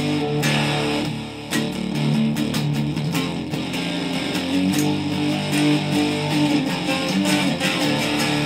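Gibson Les Paul electric guitar played through a Digitech RP55 effects processor: held notes and chords, a brief drop about a second in, then a run of quickly picked notes before it settles back into longer notes.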